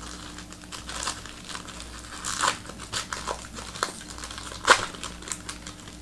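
Trading-card pack wrapper crinkling and tearing as it is opened, with irregular crackles, the sharpest about four and a half seconds in.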